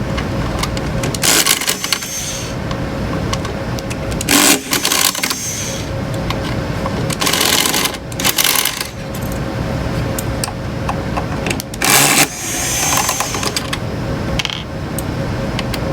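Small metal screws and oscilloscope chassis parts being handled, giving several short bursts of clinking and rattling with pauses between.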